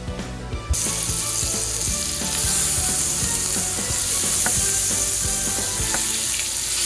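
Butter sizzling as it melts and foams in a hot nonstick frying pan, with small scrapes as the stick of butter is rubbed around the pan. The sizzle starts abruptly just under a second in and stays steady.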